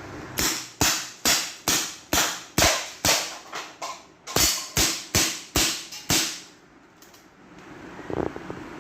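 Gamo PR-776 CO2 pellet revolver being fired in quick succession, a dozen or so sharp shots at about two a second with a short pause about four seconds in. A small clatter follows near the end.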